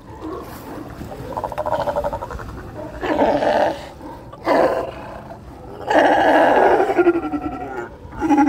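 California sea lions barking, about five loud calls in a row with short gaps between them, the longest lasting about a second and a half near the middle.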